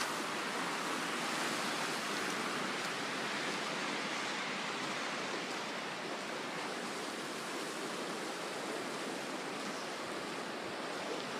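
Steady rushing hiss of snowmelt floodwater running, growing a little fainter over the stretch.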